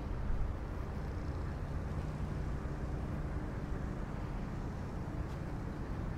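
Steady road and engine noise of a car driving at an even pace, a low rumble with no sharp events.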